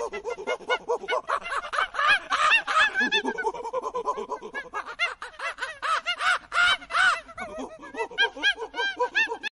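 A troop of macaques calling over one another: many short, high, arching squeals and coos overlapping, several a second.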